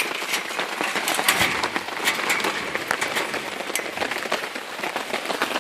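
Heavy rain pouring down: a steady hiss thick with the sharp ticks of drops striking close by.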